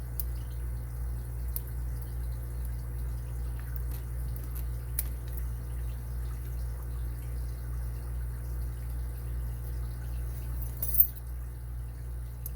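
Faint, scattered clicks of a lock pick working the pins of an Abus 80TI/50 padlock under tension, with one sharper click near the end, over a steady low hum.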